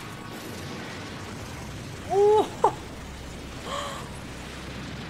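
The anime episode's audio runs quietly underneath. About two seconds in comes a short, loud wordless cry of shock: a rising 'ohh', then a quick high squeal. A softer cry follows about a second later.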